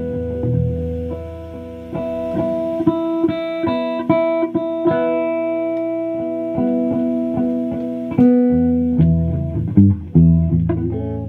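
Electric guitar played solo without singing: held chords ring while single notes are picked over them, and a few sharp strums come near the end.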